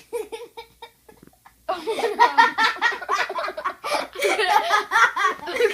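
Laughter: a few short bursts at first, then sustained, hearty laughing from about two seconds in.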